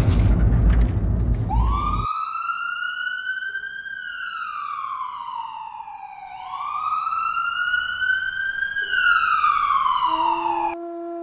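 A loud rushing noise dies away in the first two seconds, then an ambulance siren wails, rising and falling slowly twice before cutting off suddenly. A steady low musical drone begins near the end.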